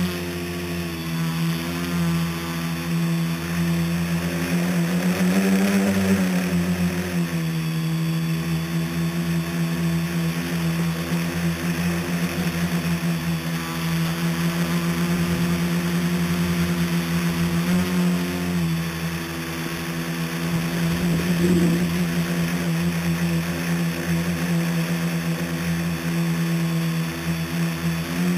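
Scratch-built tricopter's three electric motors and propellers buzzing steadily in flight, heard from the camera on board. The pitch rises briefly about five seconds in and again a little near eighteen seconds.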